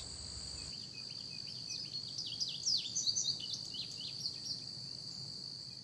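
Nature ambience: a steady, high-pitched insect drone, with a run of quick bird chirps from about one and a half to four and a half seconds in.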